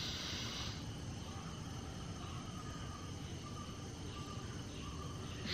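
A slow, deep breath drawn in through one nostril, ending just under a second in, during alternate-nostril breathing. Then the breath is held and only a faint outdoor background with short, high chirps is heard, until a breath out begins at the very end.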